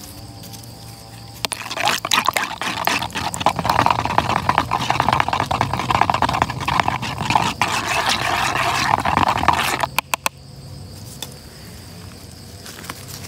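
A thin wooden stick stirring fresh rubber latex in a black tapping cup, mixing in acid to set it into cup-lump rubber: a liquid swishing with rapid clicks of the stick against the cup for about eight seconds. The stirring stops with a few sharp clicks. A steady high insect buzz runs underneath.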